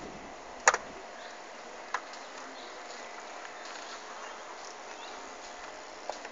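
Steady outdoor background noise with faint bird chirps and three sharp clicks, the loudest just under a second in.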